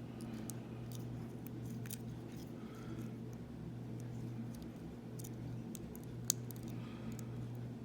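Faint, scattered clicks and scraping of a lock pick working the pins of a tiny Tolco padlock under tension, with one sharper click a little past six seconds in. A steady low hum runs underneath.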